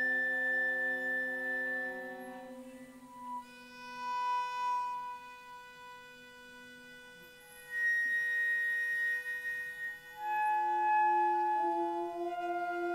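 Chamber ensemble playing slow, microtonal contemporary music: several long held notes overlapping, with new notes entering one after another and a quieter stretch midway.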